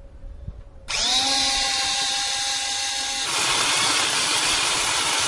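Power drill spinning up about a second in with a quickly rising whine, then drilling a hole through the car's painted sheet-metal body for a power cable. The steady whine turns into a rough, noisy cutting sound about three seconds in as the bit bites into the metal.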